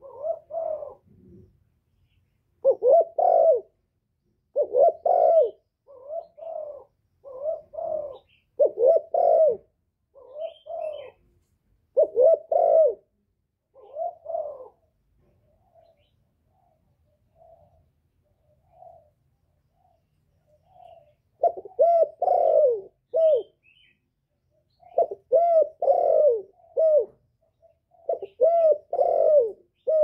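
Male spotted dove cooing: groups of two or three low, bending coos repeated every second or two. The calls drop to a few soft single notes for about six seconds in the middle, then come back loud near the end.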